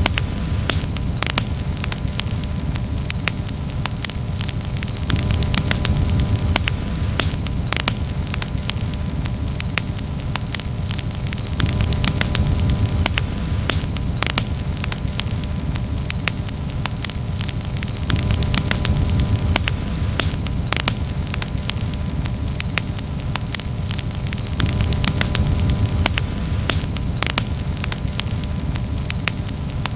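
Wood campfire crackling, with frequent sharp pops and snaps of varying loudness over a steady low rumble of the burning fire.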